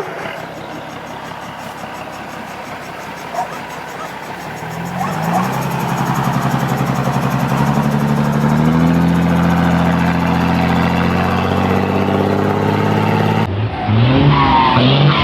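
Mercedes-Benz diesel truck engine with a comb fitted in its turbo intake. The engine revs up from about five seconds in, then holds a steady drone. Near the end the sound changes abruptly to a passing truck whose whistle slides down in pitch.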